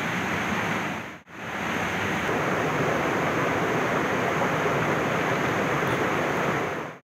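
Steady rush of a stream and small waterfall running over rocks, broken by a brief gap about a second in and cutting off abruptly near the end.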